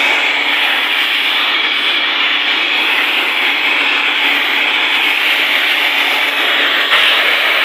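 Electric hand blower running steadily at full speed, blowing air through the condenser coil of a split AC outdoor unit to clear its dust, with a small knock near the end.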